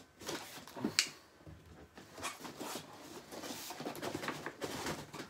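Large cardboard shipping box being lifted and shaken to slide out a wrapped framed print: a sharp click about a second in, then repeated scraping and rustling of cardboard and packaging.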